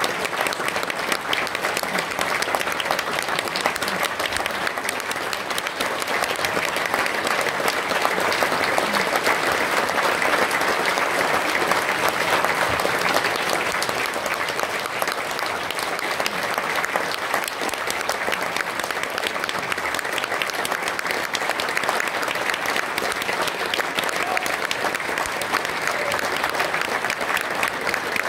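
Audience applauding steadily in a long, unbroken ovation.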